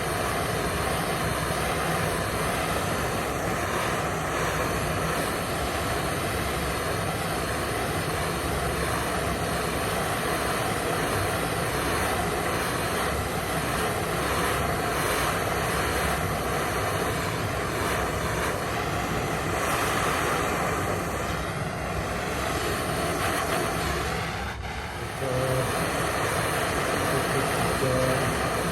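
Gas blowtorch flame burning steadily while it heats a vertical copper pipe joint so the solder is drawn in; the sound dips briefly near the end.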